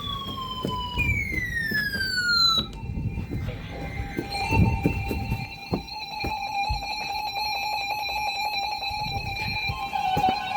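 Emergency alert tones: a falling, siren-like sweeping tone repeats until about two and a half seconds in, then gives way to a steady, buzzy electronic alert tone, the attention signal before an emergency alert broadcast.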